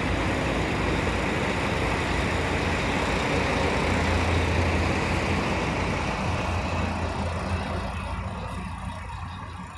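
Steady low engine hum with a noisy hiss over it, fading away over the last few seconds.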